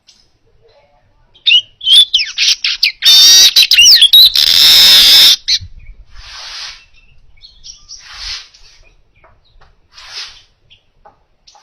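Manyar weaver bird singing close to the microphone. About a second and a half in comes a run of quick chirps, then a loud, harsh, sizzling buzz lasting about two seconds, followed by three shorter hissy buzzes about two seconds apart.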